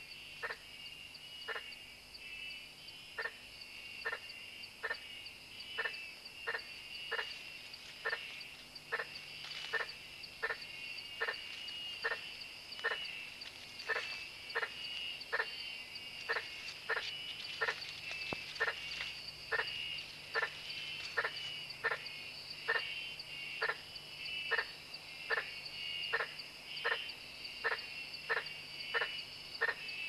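Night-time rainforest chorus of frogs and insects. Short knocking frog calls repeat unevenly, about once or twice a second, over a steady high insect trill.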